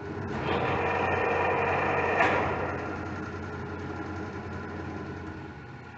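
17 x 80 Clausing-Colchester gap bed engine lathe running, its geared headstock giving a steady mechanical hum with a whine of several tones. A sharp click comes a little over two seconds in, and it runs quieter after that.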